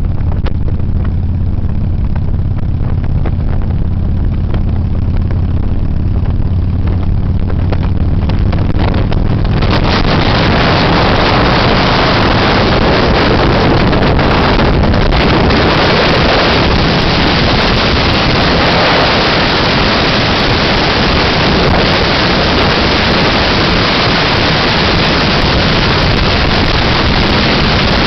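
Motorcycle engine running steadily at road speed, with wind rushing over the bike-mounted microphone. About ten seconds in, the wind rush gets much louder and largely covers the engine's low hum.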